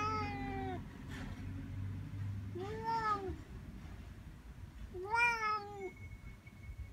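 Orange tabby cat meowing three times in short 'talking' meows, each rising and then falling in pitch, about two and a half seconds apart.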